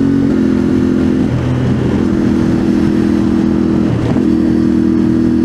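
Yamaha Ténéré 700's parallel-twin engine running at highway cruising speed through a slip-on exhaust, its pitch stepping slightly down and back up a few times as the throttle shifts. Heavy wind rushes over the microphone.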